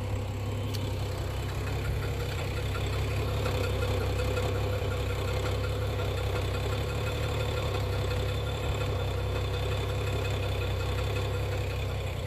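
BMW 335i's N55 turbocharged straight-six running at idle with a loud, rapid, steady ticking over the engine note. The owner is unsure of the cause: he first feared rod knock, but leans towards the evap purge valve cycling.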